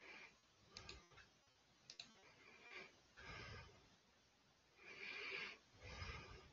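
Near silence: faint room tone with two soft clicks about one and two seconds in, and faint breaths into a headset microphone around three, five and six seconds in.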